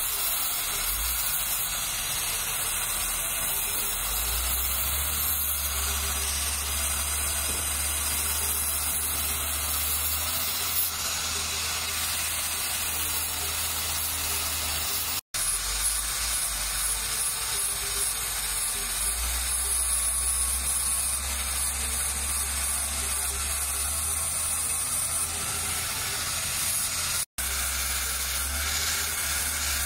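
Electric angle grinder running steadily with a sanding disc pressed against a knife handle, shaping and smoothing it; a continuous hissing grind. The sound breaks off abruptly twice, once midway and once near the end.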